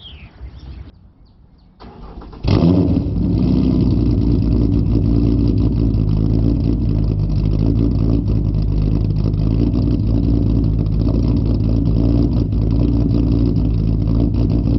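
2008 Ford Mustang's 4.0 SOHC V6 starting about two and a half seconds in, then idling steadily through a loud exhaust.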